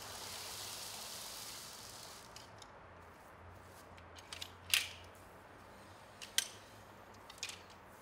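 A folding rotary outdoor clothes dryer being opened: a soft rustling swish as its fabric cover comes off, then several sharp clicks of the hub and arms snapping into place, the loudest a little past halfway.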